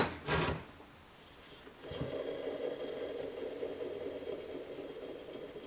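Old alternator from a 2001 Mazda B4000 (Ford Ranger), its pulley spun by hand, giving a steady whirr from its bearings from about two seconds in that slowly fades. Pretty noisy: the sign of a worn-out alternator that, if not already failed, was not far from it.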